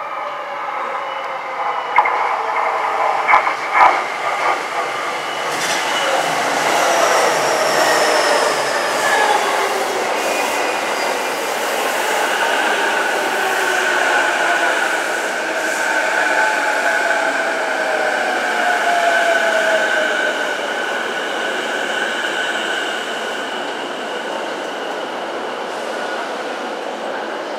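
JR East E233-7000 series electric commuter train running close past at speed, with sharp wheel clacks over rail joints about two to four seconds in. Then a whine that slowly falls in pitch as the train slows on its way in to the platform, over steady wheel-on-rail running noise.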